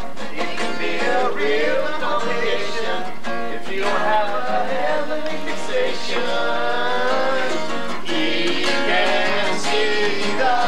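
Acoustic guitar strummed as accompaniment to singing, a song being sung through.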